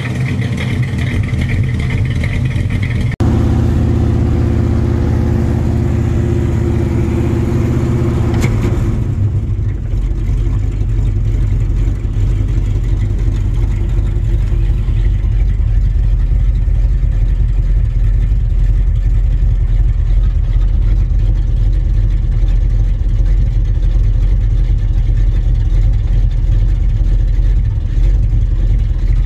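1978 Chevrolet farm truck's engine running. The sound changes abruptly about three seconds in and again near nine seconds, then settles into a steady low idle at about 500 rpm.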